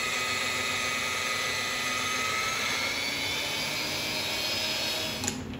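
Magnetic drill press motor running with a steady, many-toned whine, its twist bit working in a steel plate through a drill-jig bushing; the sound drops away a little after five seconds.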